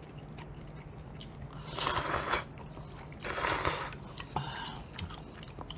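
Two loud slurps of udon noodles and hot broth, about two seconds in and again about a second later, with faint small clicks between.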